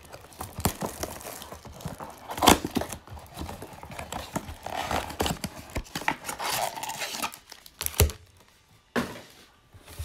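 Foil trading-card pack wrappers crinkling and tearing, with cardboard box flaps handled, full of small sharp clicks. The handling stops with a sharp tap about eight seconds in.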